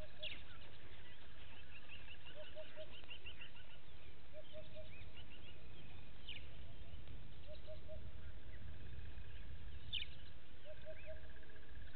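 Several wild birds calling. A low three-note call repeats every two seconds or so, a quick run of high chirps comes early, and sharp downward-sweeping notes come about a third of the way in and near the end. Under them are a steady high trill and a constant low rumble.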